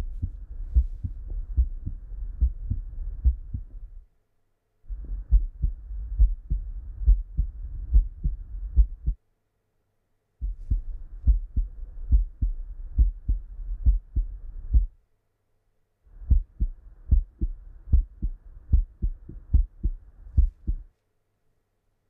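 Normal heart sounds (S1 and S2, "lub dub") heard through a stethoscope diaphragm: regular deep paired beats. They come in four stretches of about four seconds, with a short silence between each.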